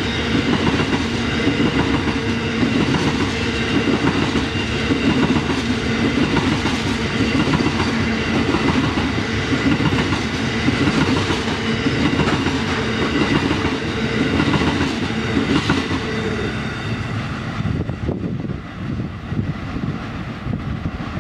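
CBH grain train's hopper wagons rolling past, wheels clattering rhythmically over the rail joints with a steady hum. The sound thins out and drops away near the end as the last wagons pass and draw off.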